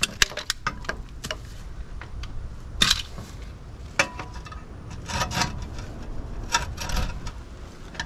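Old PVC pipe being cut by hand: scattered sharp clicks and cracks of the plastic, the loudest about three and four seconds in.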